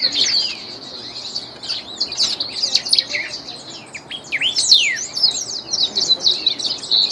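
Ultramarine grosbeak (reina mora) singing a continuous fast warble of quick rising and falling notes.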